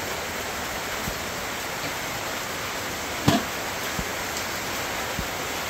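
Steady rain: an even hiss with a few scattered drips, and one louder knock a little over halfway through.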